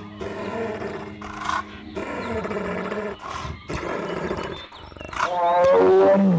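An animal calling: a run of harsh, pitched calls, the last and loudest one near the end falling in pitch.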